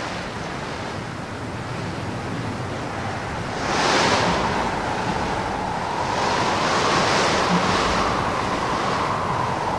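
Strong mountain wind rushing through the trees in gusts, swelling about four seconds in and again a little later.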